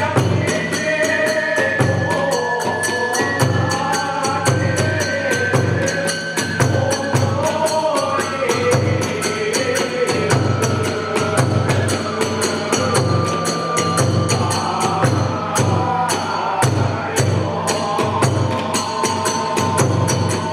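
Hiroshima kagura music: a large drum beating a steady rhythm under continuous clashing of small hand cymbals, with a bamboo flute playing held notes above.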